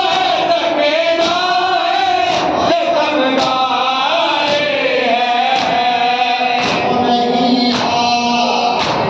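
A noha, a Shia lament, chanted by male voices with a crowd joining in. Under it runs a sharp slap about once a second, the crowd's chest-beating (matam).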